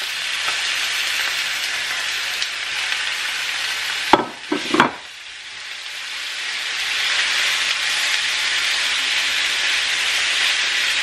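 Chicken thigh pieces sizzling in hot olive oil in a frying pan, stirred with a wooden spoon. Two sharp knocks come about four to five seconds in, after which the sizzle dips and then builds back up louder.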